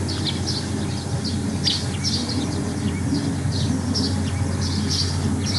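Small birds chirping, several short high chirps a second, over a steady low hum.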